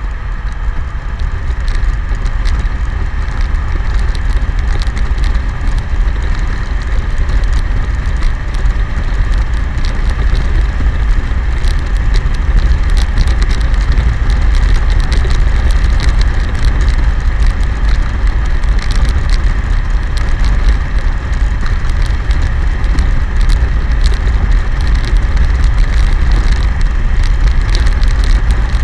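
Loud, steady wind rush buffeting a motorcycle-mounted camera's microphone at road speed, with frequent crackles. Underneath it the BMW K1100LT's inline-four engine runs under steady cruise. The noise gets a little louder over the first few seconds as the bike gathers speed.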